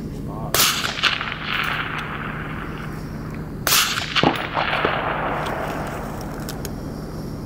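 Two rifle shots about three seconds apart, each a sharp crack followed by a rolling echo that dies away over a second or more.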